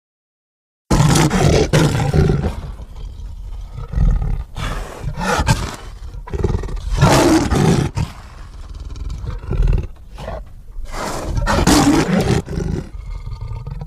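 Jersey Devil creature sound effect: a run of loud, harsh roars, one after another, starting about a second in after a moment of dead silence.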